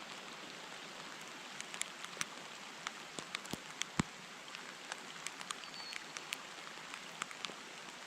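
Heavy rain falling: a steady hiss with scattered sharp ticks of single drops striking close by, one louder tick about four seconds in.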